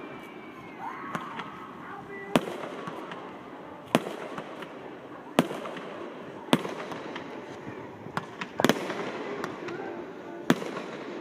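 Aerial fireworks bursting in a steady sequence: about seven sharp bangs, roughly one every second and a half.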